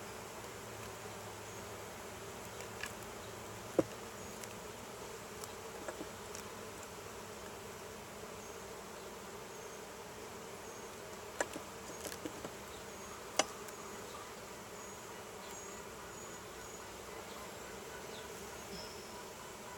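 A honeybee colony buzzing steadily from an open hive as its frames are inspected. A few short sharp clicks stand out, the loudest about four seconds in and twice more past the middle.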